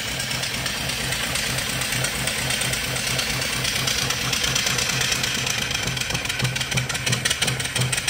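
Single-cylinder vertical steam engine with a 3-inch bore and 4-inch stroke running steadily on steam, its exhaust steam hissing with a rapid, even beat; in the builder's words it runs perfect.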